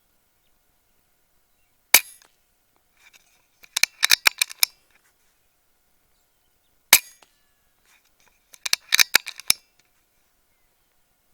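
Two shots from a RAW HM1000X .30-calibre PCP air rifle, about five seconds apart. Each is followed about two seconds later by a quick run of sharp clicks.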